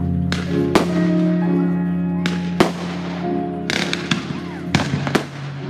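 Fireworks going off: about seven sharp bangs of shells and comets bursting, two close together near the start and a cluster in the second half, over music with long held notes.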